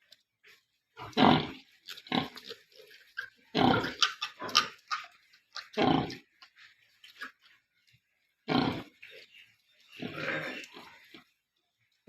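Pigs calling on a farm: a string of short, separate calls, about seven in all, with quiet gaps between them.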